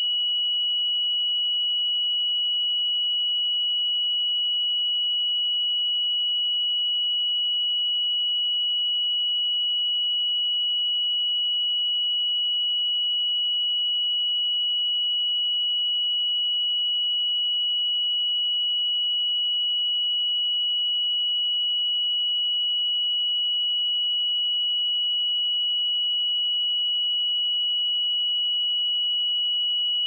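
A steady 2928 Hz pure sine-wave tone, one unchanging high pitch with no harmonics, played as a test signal for speakers and headphones.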